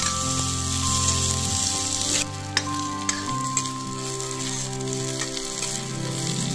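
Sliced onions sizzling as they fry in oil in a kadhai, stirred with a steel ladle. A few sharp clicks of the ladle against the pan come a little over two seconds in.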